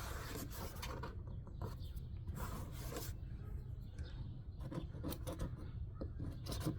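Irregular scraping and rubbing strokes as old window adhesive is worked off the car body around the quarter-window opening.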